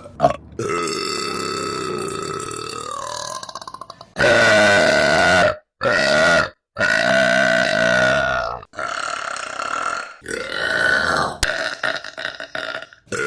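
A run of about seven long burps from different women, cut one straight after another. Each burp lasts about one to three seconds and holds a fairly steady pitch, and each breaks off sharply into the next.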